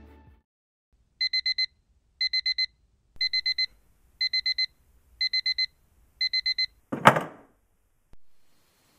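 Digital alarm clock beeping in groups of four quick beeps, about one group a second, six groups in all. The beeping stops, and a single loud thump follows about seven seconds in.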